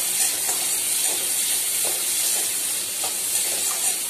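Chopped onions sizzling in hot oil in a steel kadai, with a metal spatula stirring and scraping the pan a few times.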